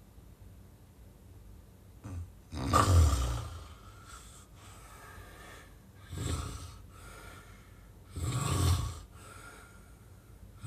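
A sleeping person snoring: after a couple of seconds of quiet, two loud snores about five and a half seconds apart, each answered by a softer breath, in snoring of the kind associated with sleep apnea.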